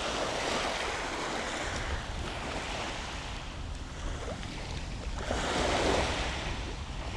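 Sea waves washing onto the beach, a steady rush that swells about five seconds in, with a low rumble of wind on the microphone.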